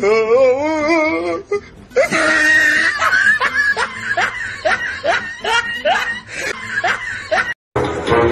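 A person laughing: a drawn-out wavering laugh, then a quick run of short laughs, about three a second. It cuts off abruptly near the end and music starts.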